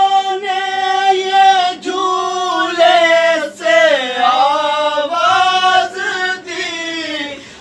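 Group of men reciting a Shia Muharram noha (lament) unaccompanied, several voices chanting together in long held lines. One phrase slides down in pitch about four seconds in.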